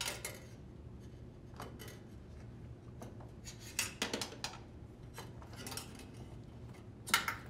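A wire door boot seal retaining ring and the rubber boot seal of a front-load washer being handled: scattered light clicks, ticks and rubbing as the ring is wrapped around the boot and tucked into its groove, with a louder cluster of clicks near the end.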